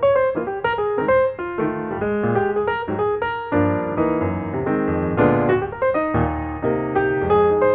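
Background music played on a piano: a quick, steady run of notes with no voice over it.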